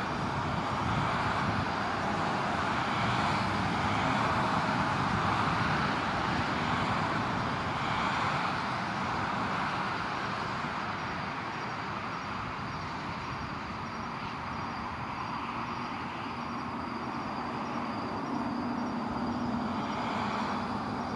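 Steady outdoor rushing noise that swells and eases every few seconds, with a faint low hum joining near the end.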